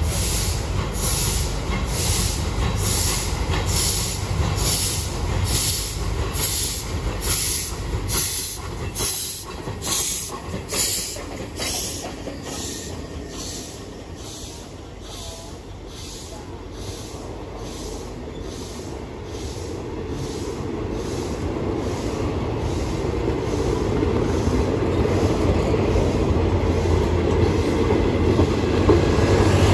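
Steam locomotive working a passenger train, its exhaust beating about once a second and fading away as it draws off, followed by the coaches rolling by with a steady wheel rumble that grows louder near the end.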